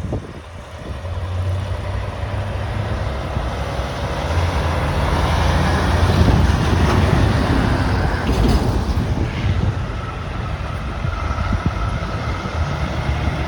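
Semi truck's diesel engine running with a low rumble that builds about a second in and is loudest in the middle, then eases slightly.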